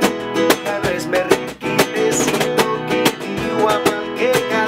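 Acoustic guitar strummed in a steady rhythm, playing a song's chords, with a man's voice singing briefly near the end.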